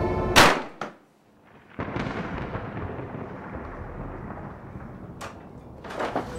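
Film soundtrack effects: music breaks off with one loud hit, then about a second of near silence. A noisy wash without pitch then starts suddenly and fades slowly, with a single sharp click near the end.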